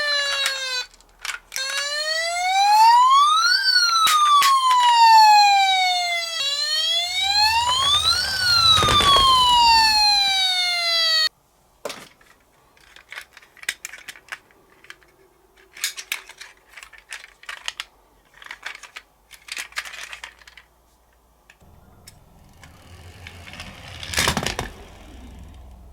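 Toy police car's electronic siren wailing, sweeping slowly up and down in pitch, each rise and fall taking a few seconds, then cutting off suddenly about eleven seconds in. After it come scattered light clicks and rattles, with a thump near the end.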